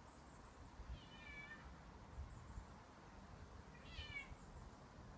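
Kitten mewing twice, faintly: two short, high-pitched, slightly falling mews about a second in and again about four seconds in.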